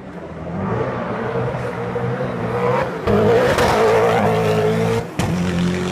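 Koenigsegg One:1's twin-turbo V8 accelerating hard and getting louder, its note cutting out briefly twice, about three and five seconds in, as it shifts up.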